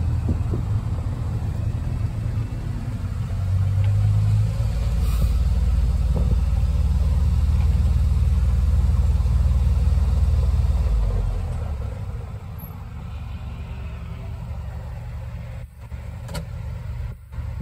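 Arctic Cat Prowler UTV engine and drivetrain heard from the cab while driving: the sound builds and grows louder about three seconds in, holds at speed for several seconds, then eases back to a lower steady running sound about eleven seconds in.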